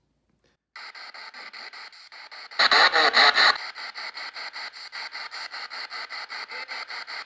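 Spirit-box sweep audio: the sweeping radio's static chopped into rapid pulses about seven times a second, played through the APF-D processor. It starts about a second in, with a louder patch of about a second midway.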